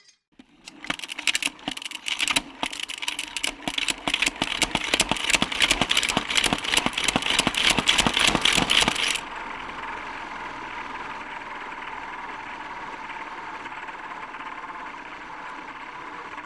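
Pump-action toy spinning top: the plunger is pumped hard, a fast rattling click that speeds up and grows louder. About nine seconds in the pumping stops and the spinning top gives a steady whirring hum.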